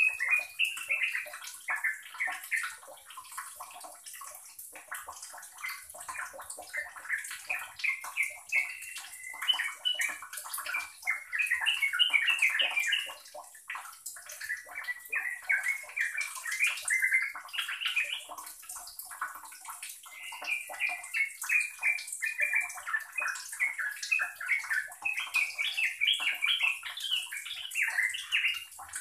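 Yellow-vented bulbul (trucukan) singing a long, continuous run of quick chattering notes: the rapid 'nropel' style of song.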